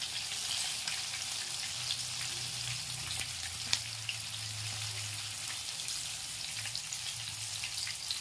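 Spice-coated fish pieces shallow-frying in hot oil: a steady crackling sizzle with many small pops, and one sharper tick a little before four seconds in.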